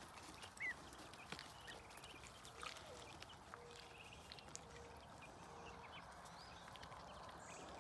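Near-quiet poultry run: ducklings and chickens foraging, with one short peep about a second in and a few faint ticks of pecking and scratching in the dirt.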